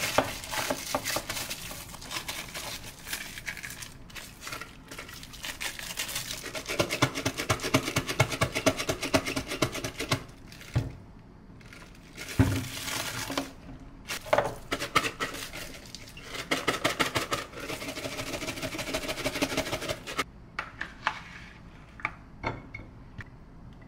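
Plastic bag crinkling and rustling as it is worked around a glass jar of salad, in long dense stretches of fast crackling, with a single thump midway and a few light clinks near the end.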